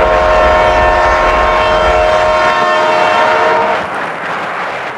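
Train horn sounding as a chord of several steady tones, held for almost four seconds and then breaking off, with a low rumble underneath at first.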